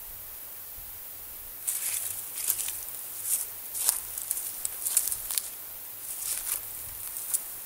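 Footsteps crunching and rustling in dry leaf litter and pine needles, in irregular bursts that start about two seconds in.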